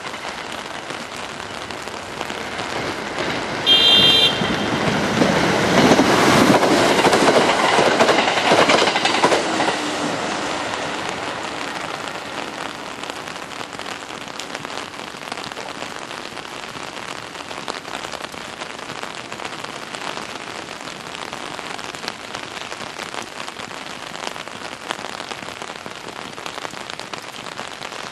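Steady rain falling on the tracks. About four seconds in a short high horn blast sounds, then a Kintetsu limited express train runs past, its running noise swelling and fading away over about six seconds, leaving only the rain.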